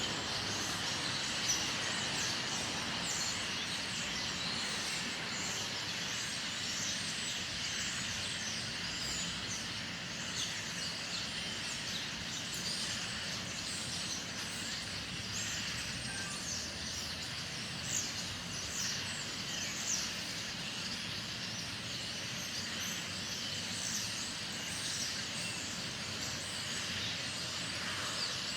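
A large flock of birds calling all at once, a dense unbroken chatter of many short high chirps overlapping, over a low steady rumble.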